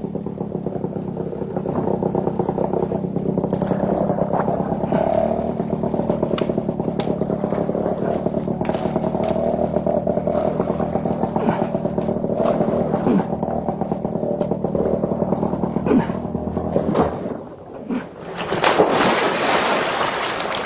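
Small outboard motor running at a steady pitch while the boat sits hung up on a log, with scattered knocks and scrapes from the hull. About seventeen seconds in, the engine sound drops away and a loud rush of splashing water follows.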